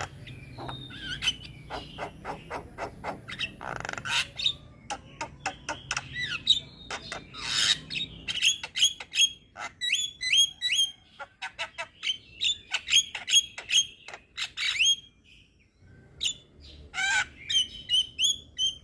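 Young Javan myna singing a busy, varied run of sharp clicks, squawky chirps and repeated short upslurred whistles, with a short break near the end.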